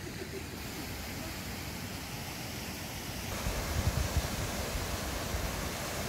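Steady rushing of a small waterfall, growing fuller and brighter about halfway through, with wind rumbling on the microphone around four seconds in.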